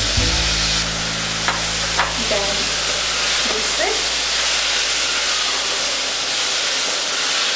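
Basmati rice and vegetables sizzling in ghee in a pressure cooker as they are stirred with a spatula, a steady frying hiss. There are two light knocks of the spatula against the pot about a second and a half and two seconds in.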